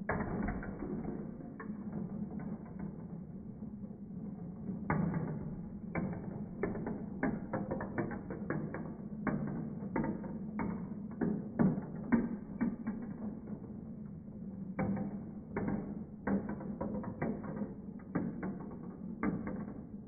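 Glass marbles rolling and clattering through a plastic marble run, heard slowed down: many irregular deep knocks and clicks over a steady low rolling rumble.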